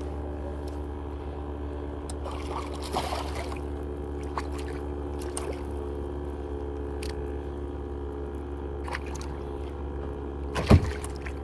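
Water trickling and splashing around a kayak, with scattered light clicks and one sharp knock near the end.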